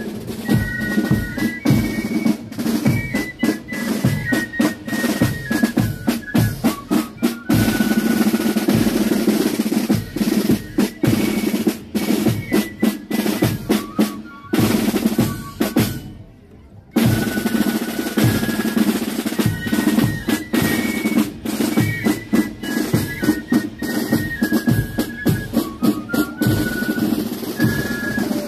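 Marching band playing a march in a parade: snare and bass drums under a high, stepwise melody, with a sustained drum roll about eight seconds in and a brief lull around sixteen seconds.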